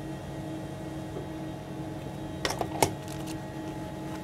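Steady mechanical hum of the International Space Station's cabin equipment, with a few light clicks and rattles about two and a half seconds in.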